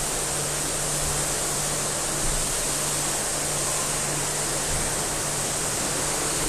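Self-service dog wash machine running: a steady rushing noise with a faint low hum under it, like water spray or a blower.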